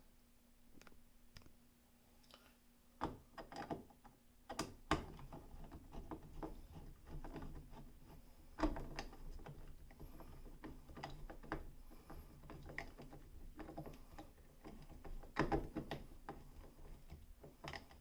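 Irregular small clicks, taps and knocks of hands working a rocker light switch and its wall box, with a few sharper knocks about three, five, eight and a half and fifteen seconds in.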